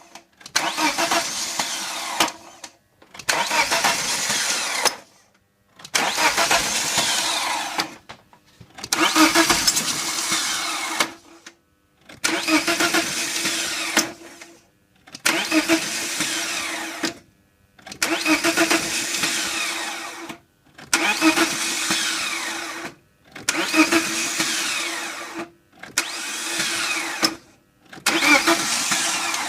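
A 1998 BMW 318ti's M44 four-cylinder engine cranking on the starter in about eleven bursts of roughly two seconds each, with short pauses between. It does not catch and run: the hard-start problem.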